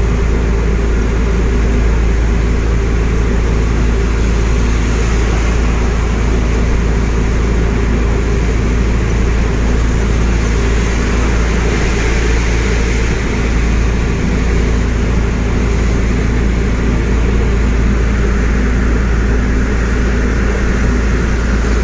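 Heavy truck's diesel engine running steadily at cruising speed, heard inside the cab, under a continuous hiss of tyres on a rain-soaked highway.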